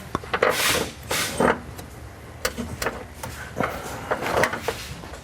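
Scattered clicks, knocks and short rustling scrapes as tools and suspension parts are handled and fitted, with the loudest scrapes in the first second and a half.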